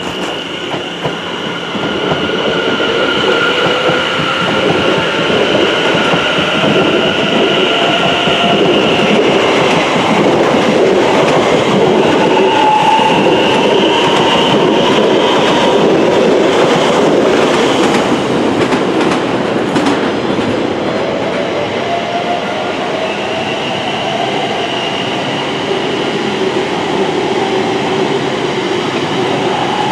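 Electric multiple-unit trains running through the station: a loud continuous rumble of wheels on the track, with steady high whining tones above it. Twice a traction-motor whine rises slowly in pitch.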